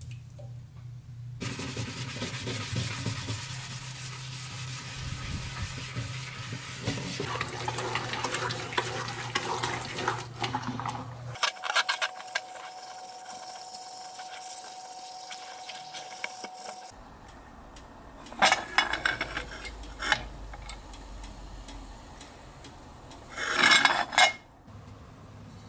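Cast iron kettle scrubbed with steel wool under a running tap, a long stretch of rasping and splashing. Later come a few loud clanks of cast iron, as the kettle's heavy lid and body knock together.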